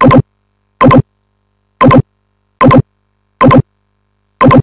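A short, loud, pitched click sound effect repeated six times, a little under a second apart, each time the mouse is clicked to toggle a waveform cell.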